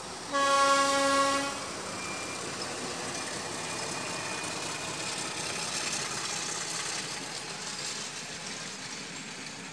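A Sri Lanka Railways M4-class diesel locomotive sounds one short, single-note horn blast about a second long, then the steady noise of the locomotive and its coaches passing on the rails swells and slowly fades.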